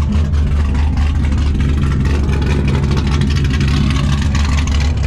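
Car engine running steadily and loud, with a deep, even exhaust rumble.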